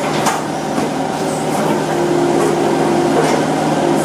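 An engine or motor running at a steady hum, with a sharp knock just after the start.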